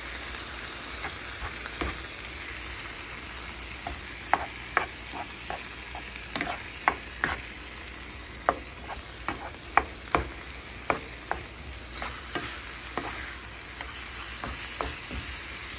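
Chili of browned ground beef and diced tomatoes sizzling steadily in a skillet as a spatula stirs it, with light irregular clicks and scrapes of the spatula against the pan.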